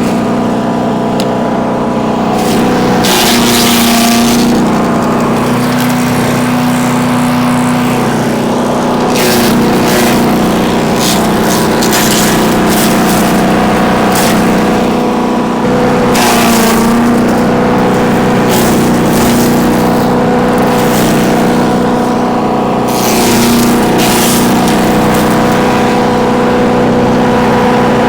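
Bilt Hard wood chipper's 224 cc gas engine running steadily at speed while branches are fed in. Repeated short bursts of crackling and shredding come as the wood is chipped, and the engine note dips briefly a few times under the load.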